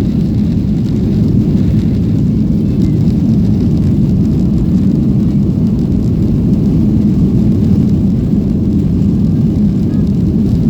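Jet airliner's engines and rushing air heard from inside the passenger cabin during takeoff: a loud, steady, deep roar.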